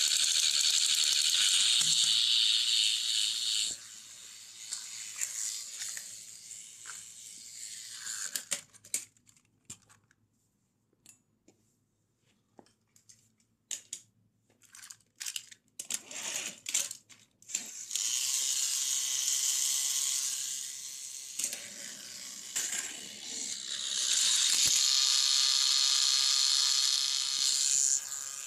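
Battery-powered toy train engines running on plastic track: a loud, high-pitched whir of their small motors and gears. It drops away about four seconds in, leaving a quiet stretch with scattered plastic clicks and rattles, then starts up again twice before the end.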